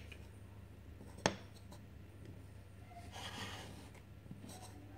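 Plastic toy building blocks and a toy figure being handled on a table: one sharp plastic click about a second in, then a brief scraping slide a couple of seconds later.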